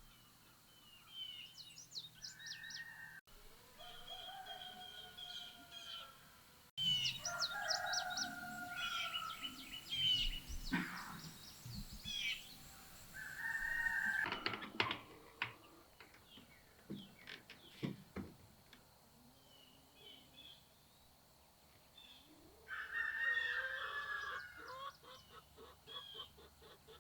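Farmyard fowl: a rooster crowing and chickens clucking, with small birds chirping high above them. The sound changes abruptly several times, at about 3, 7 and 14 seconds in.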